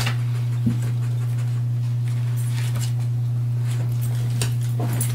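Dog sniffing and scraping with its paws under a wooden shelf unit, hunting for a treat that rolled underneath, in short scattered scrabbles. A steady low hum runs underneath throughout and is the loudest part.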